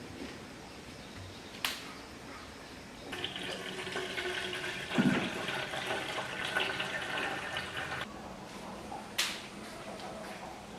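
Water running from a kitchen tap: it starts abruptly about three seconds in, runs steadily for about five seconds, then cuts off. There are sharp clicks before and after, and a low knock partway through.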